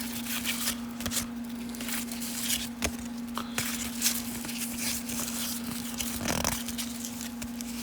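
Baseball cards and foil pack wrappers being handled: scattered rustling, crinkling and light scraping, over a steady low hum.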